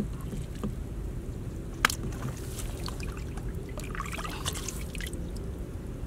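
Hands splashing and dripping in muddy water while snakehead fish are pulled out of a small flooded pit, with a sharp slap about two seconds in and a burst of splashing around four seconds in, over a low steady rumble.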